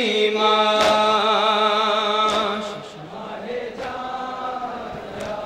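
Noha being chanted by a male reciter through a microphone: one long held note with a wavering pitch that fades out about three seconds in, leaving a quieter stretch with a few faint sharp knocks.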